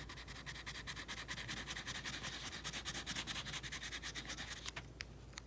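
Green wax crayon scribbling on paper: quick back-and-forth colouring strokes, several a second, stopping near the end.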